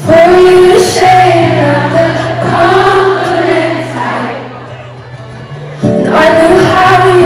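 Live pop performance heard from the audience in a large arena: a female singer accompanied by acoustic guitar, with many voices singing along. The music softens briefly about four seconds in, then swells again near the end.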